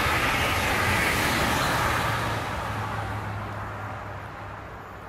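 VR double-deck passenger train passing at speed: steady rolling noise of wheels on rail and rushing air, which fades away from about two seconds in as the train draws off.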